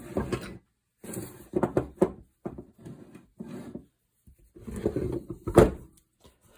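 Knocks, clunks and scraping as a chuck is set into holding blocks and steadied on a tabletop, a run of short handling knocks with the loudest, sharpest knock about five and a half seconds in.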